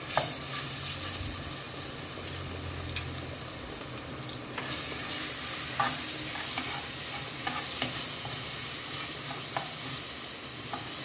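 Crushed garlic sizzling in hot oil in a metal pot while it is stirred, with a few light clicks of the spoon against the pot. The sizzle grows louder about four and a half seconds in.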